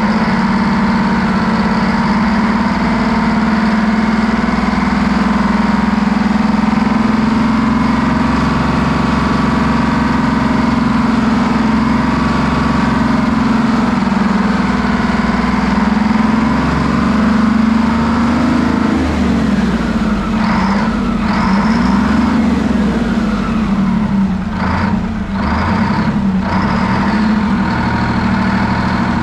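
Detroit Diesel 12V71TT V12 two-stroke diesel engine running steadily; a little past the middle its speed wavers up and down for several seconds, then settles back to a steady run.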